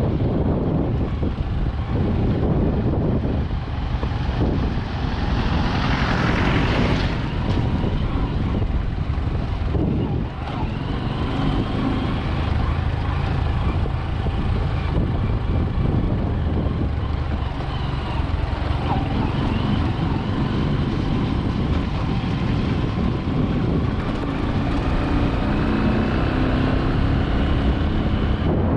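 Road vehicle noise, a steady rumble with wind on the microphone, and a louder rushing swell about six seconds in.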